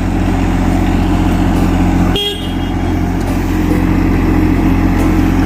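A loud, steady engine or motor running, with a brief dip about two seconds in.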